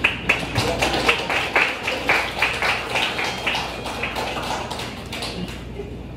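Small audience clapping, starting sharply and dying away after about five seconds.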